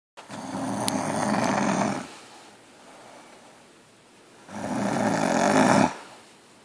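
A woman snoring loudly in her sleep: two long snores, each about a second and a half, with a quieter pause of a few seconds between them.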